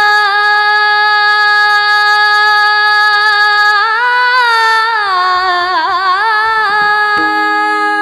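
A woman singing a bhajan, holding one long vowel note without words. In the middle she ornaments it with quick pitch bends and wavers, then settles back onto a held note, over a steady drone.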